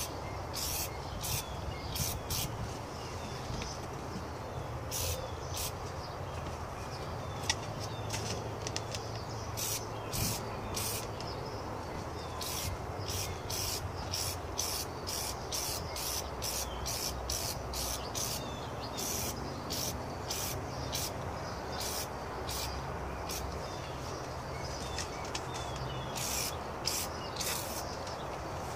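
Aerosol can of Armor All Tire Foam spraying in many short hissing bursts, about one to two a second in runs with pauses between.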